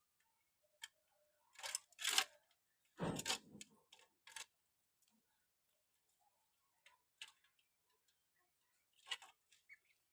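Pigeons pecking at food, giving faint, irregular sharp taps, with a busier cluster of louder taps in the first half and scattered ones later.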